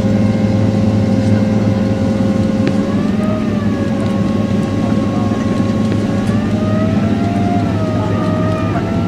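Boeing 767's Rolls-Royce RB211 turbofan engines heard from inside the cabin after landing. A steady low rumble runs under a whine that wavers slightly about three seconds in and rises a little in pitch from about six seconds in.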